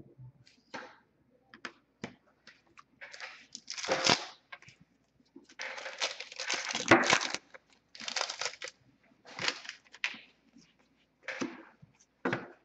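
An Upper Deck Trilogy hockey card pack wrapper being torn open and crinkled by hand, in a string of short rustling bursts, the loudest about halfway through. Near the end come a few light clicks of the cards being handled.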